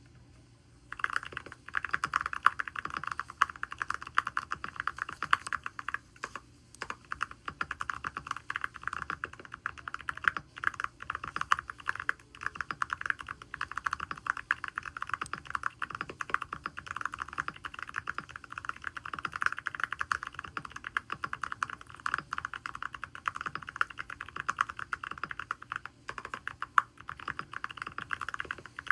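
Continuous fast typing on a DP104 mechanical keyboard fitted with SPM x HMX tactile switches: a dense stream of keystroke clacks that starts about a second in, with brief pauses twice.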